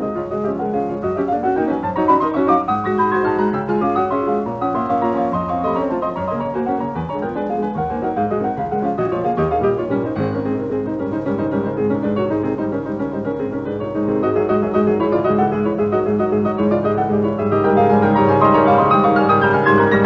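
Background piano music, with a rising run of notes about two seconds in and growing louder near the end.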